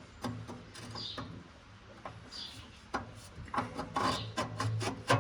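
Scattered sharp metal clicks and clinks of hand tools working at a bolt, coming thicker in the second half and loudest right at the end, with a bird calling in the background.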